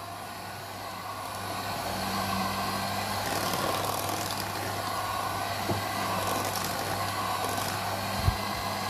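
Electric hand mixer running steadily, its twin wire beaters churning thick hung yogurt in a steel bowl. There is a single knock near the end.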